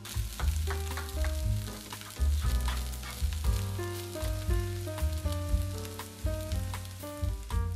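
Chopped leek and onion sizzling in hot butter and lard in a frying pan, stirred with a plastic spatula that scrapes and clicks against the pan. Background music plays along.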